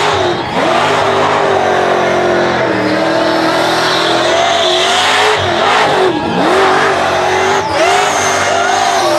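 Supercharged car engine held at high revs, its pitch and whine dipping and climbing again several times, over a continuous hiss of tyre noise.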